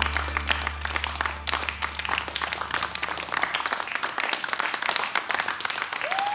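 Small audience applauding, dense steady clapping. Under it, the low notes of the music fade out about halfway through.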